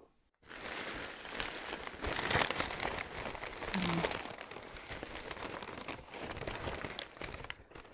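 Bubble wrap and packing paper crinkling and rustling as a doll is unwrapped by hand: a dense run of small crackles that begins about half a second in.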